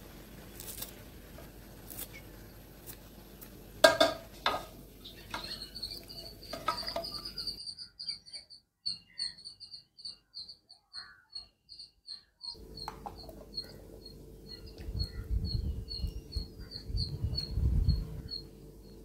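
Scissors snipping at the start, then one sharp loud clack about four seconds in. After that a small bird chirps over and over, a short high chirp about two or three times a second, with a few low thumps near the end.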